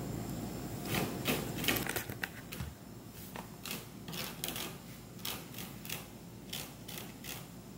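A person's fingernails scratching the sisal-rope wrap of a table-leg scratching post, in a string of short, quick scratches about two a second.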